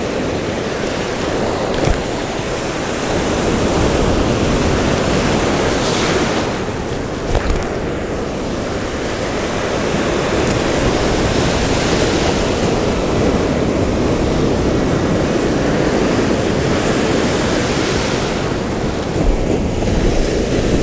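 Ocean surf breaking and washing around, a steady rushing noise that swells and eases as the waves come in.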